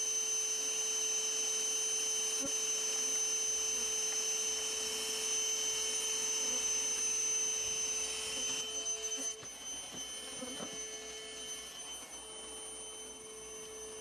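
A steady hum made of several held tones, one low and some high-pitched. About nine seconds in, the high tones fade and it gets a little quieter, leaving the low tone running on.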